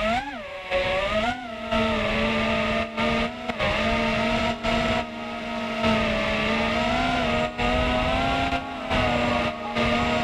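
FPV drone's brushless motors and propellers whining. The pitch swings up and down for the first couple of seconds, then holds a steady tone, with several short dips where the throttle is briefly cut.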